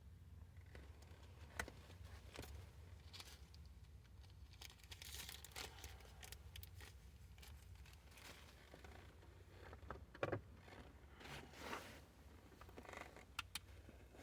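Faint rustling and scraping of a leather shift boot being tucked in and straightened around the gear lever, with a few sharp clicks, the loudest about ten seconds in.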